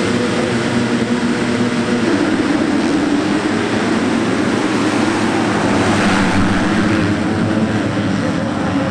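A full gate of 250cc four-stroke motocross bikes revving at the start line, then pulling away together at full throttle about two seconds in, a dense, loud mass of engine noise.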